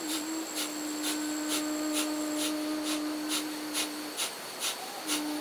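Kapalbhati breathing: sharp, forceful exhalations through the nose, about two puffs a second, evenly paced. Beneath them a steady low pure tone is held, dropping out about four seconds in and returning near the end.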